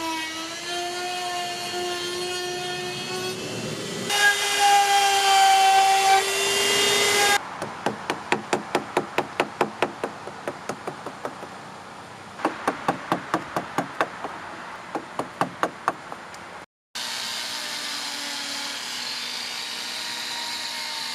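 Wood-carving tool work in several cut-together bits: a power tool's motor running steadily, then louder and higher for a few seconds, followed by two runs of quick, evenly spaced knocks on wood at about four a second, and a quieter steady motor sound near the end.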